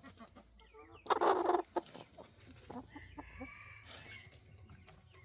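A broody hen sitting on a clutch of eggs clucking, with one loud call about a second in and quieter clucks after.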